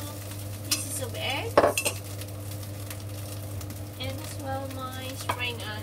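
Scrambled egg scraped off a ceramic plate into a pan of fried rice, with a few knocks and scrapes of the plate and wooden spatula against the pan, the loudest about one and a half seconds in. A steady low hum runs underneath.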